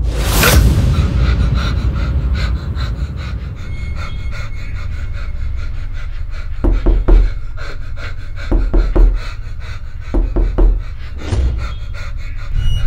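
A sudden sweeping hit about half a second in, then a person panting, fast and heavy, with deep low thumps coming in pairs from about seven seconds in.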